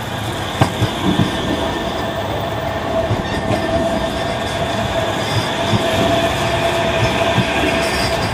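A Manchester Metrolink M5000 tram passing close by on street track, with a steady whine, rail rumble and a few sharp knocks from the wheels in the first second or so.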